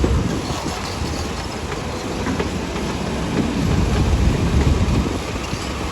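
Heavy diesel earthmoving machinery running, a steady engine rumble that swells for a second or two past the middle.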